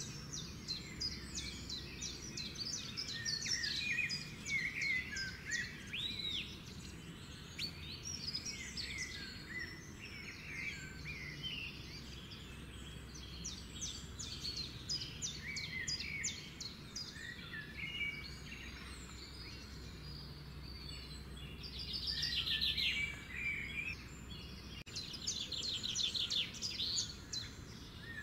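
Small birds chirping and trilling, many quick rising and falling calls overlapping, busiest near the end, over a faint steady low hum.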